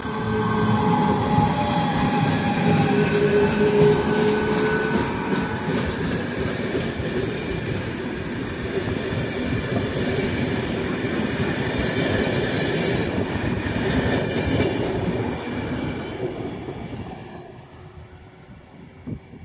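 E68000-class electric locomotive hauling a short passenger train past at speed: a loud, steady rush of wheels on rail, with rapid clicks from the wheels over the rail joints through the middle. It fades away about seventeen seconds in as the train moves off.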